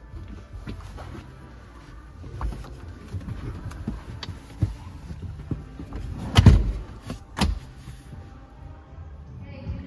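Two people climbing into third-row seats: rustling, scattered knocks and clicks against the seats and trim, with a heavy thump a little past the middle as one drops into a seat, then a sharp knock.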